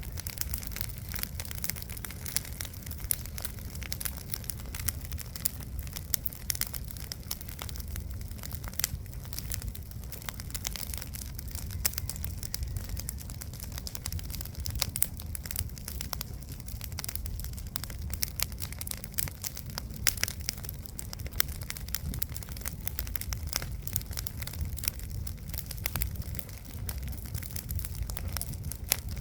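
Campfire crackling, with dense small pops and snaps throughout over a steady low rumble.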